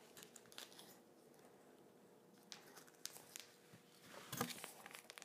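Near silence with faint scattered handling sounds of a small plastic tube and a cardboard box with a paper insert: light taps and rustles, the loudest a small knock about four seconds in.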